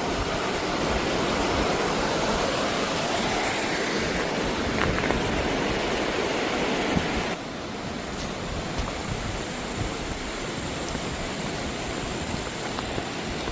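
Steady rush of fast-flowing floodwater in a river, becoming quieter and duller about seven seconds in.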